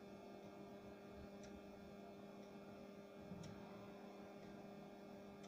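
Near silence with a steady low electrical hum. Three faint ticks, about two seconds apart, from a spoon touching metal as batter is dropped into an aluminium idli mould.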